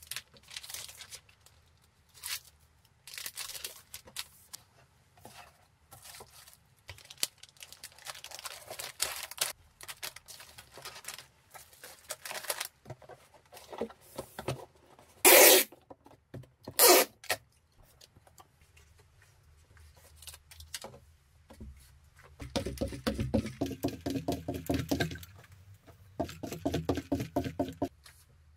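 Packing noises: a clear plastic sleeve crinkling and a cardboard mailing box being handled, with two short, loud rips about halfway through, then a longer stretch of rubbing and scraping near the end.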